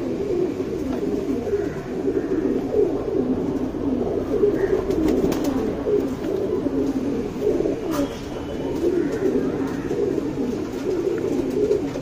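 Domestic pigeons cooing, a steady run of low overlapping coos with no break.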